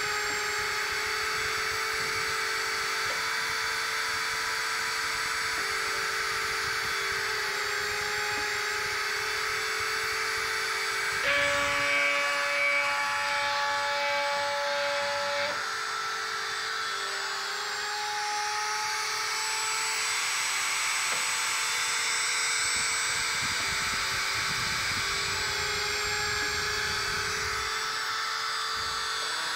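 Home-built CNC PCB drilling machine at work: a small electric drill motor runs steadily under whining motor tones that jump from one steady pitch to another every few seconds. About eleven seconds in, the tones change to a different, somewhat louder set for about four seconds, then settle back.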